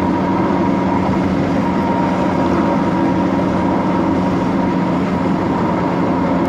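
A steady mechanical hum with several constant low tones and a fainter higher tone, unchanging in level.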